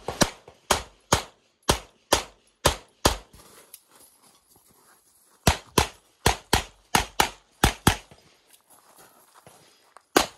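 Rapid pistol fire from a Tanfoglio handgun: a quick string of about ten shots, a pause of about two seconds, then another quick string of about ten shots. The shooting stops for the last couple of seconds.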